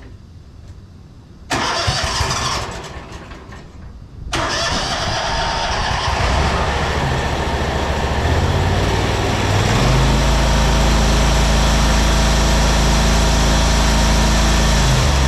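John Deere zero-turn mower engine started on the key: a burst of starter cranking about a second and a half in, then the engine catches a few seconds in and keeps running, growing louder with a steady low hum from about ten seconds in.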